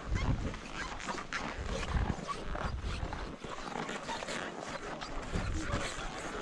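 Ski boots crunching step by step up a bootpack in deep powder snow, with hard, rough breathing close to the microphone as the skier climbs.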